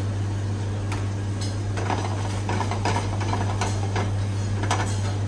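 Chopped garlic frying gently in olive oil in a small saucepan, giving scattered sizzling crackles and pops as it starts to turn golden, over a steady low hum.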